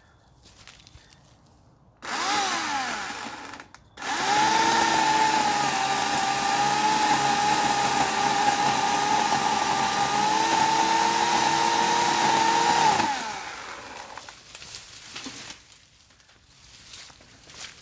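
Portland 14-inch corded electric chainsaw with a 9-amp motor. About two seconds in it gets a short burst of power and winds straight down. Then it runs steadily with a high whine for about nine seconds while cutting through a thin tree stem near the ground, and winds down as the trigger is let go.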